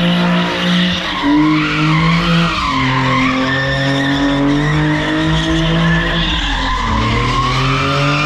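A car spinning donuts: its engine held at high revs, dropping and climbing back a few times, with the rear tyres spinning and squealing on the asphalt the whole time.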